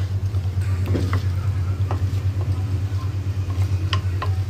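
Wooden spatula stirring spice-coated chicken pieces in a clay pot, with scattered short scrapes and knocks against the pot as the masala is fried. A steady low hum runs under it.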